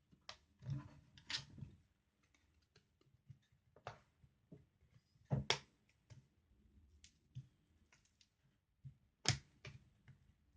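Plastic screen bezel of a Dell Latitude 5480 laptop being pried off, giving irregular sharp clicks and snaps as its clips let go. The loudest snaps come about five and nine seconds in.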